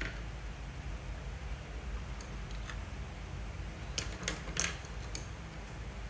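Light clicks and taps of wooden colored pencils being handled and picked up, a few scattered and then a quick cluster of three or four about four seconds in, over a low steady hum.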